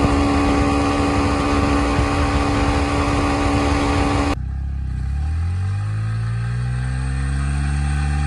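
Yamaha MT-15's single-cylinder engine running steadily at highway speed, over 100 km/h, with rushing air noise. About four seconds in it cuts off and the engine is heard revving up, pitch rising and then holding high, as the rear wheel spins in loose dirt.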